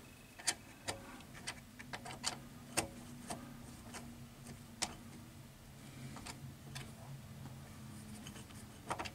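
Irregular light clicks and taps, about a dozen, from hands handling the wire connections on a drum reversing switch, over a faint low steady hum.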